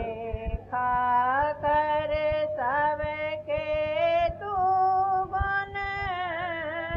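A woman singing a devotional song, holding long notes with vibrato and sliding between pitches.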